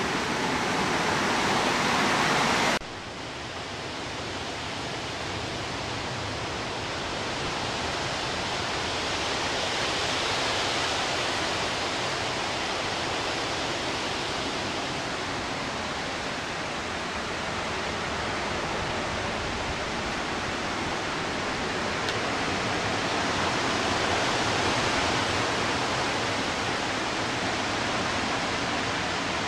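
Strong thunderstorm wind rushing through the trees as a steady roar that swells in slow gusts. It starts with a sudden cut about three seconds in, which ends a louder, different-sounding stretch.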